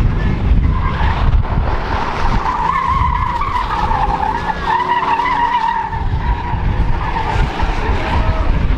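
Tires squealing as a Ford Mustang convertible spins donuts on asphalt. The wavering squeal sets in about a second in and carries on over a low rumble of engine and exhaust.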